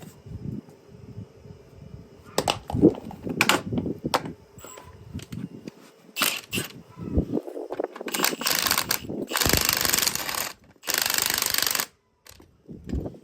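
Impact wrench hammering in two bursts of about a second each near the end, backing off a coil spring compressor's threaded rods; before that, scattered metal knocks and clanks of tools on the strut and compressor.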